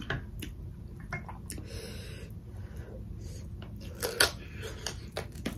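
Close-miked eating sounds: wet mouth clicks and smacks while chewing, with the loudest smack about four seconds in as a handful of food goes into the mouth by hand, over a low steady hum.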